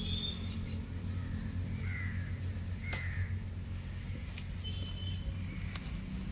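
Birds calling outdoors: several short calls over a steady low hum, with a few sharp clicks.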